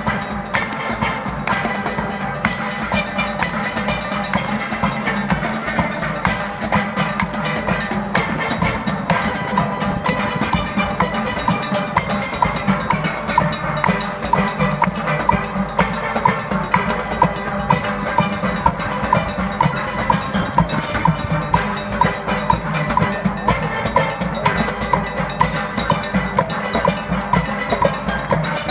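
Military band with drums playing a march live in an open-air arena, the drums keeping a steady beat that grows more distinct about ten seconds in.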